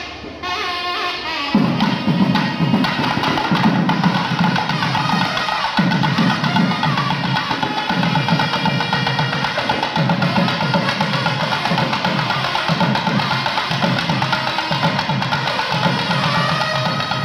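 Nadaswaram and thavil temple ensemble. The nadaswaram's gliding reed melody breaks off about a second and a half in, and the thavil drums take over with fast, dense strokes over a steady held reed tone.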